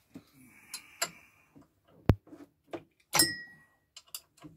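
A string of sharp metallic clicks and clinks from a spanner on the camshaft pulley bolt of a bare Rover K-series cylinder head as the camshafts are turned by hand. The loudest click comes a little over two seconds in, followed by a clank that rings briefly.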